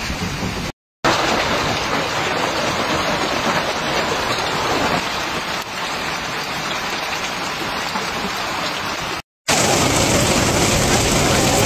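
Heavy rain and hail pelting down in a thunderstorm, a steady hiss and patter. The sound drops out briefly twice, about a second in and near the end, and is louder after the second break.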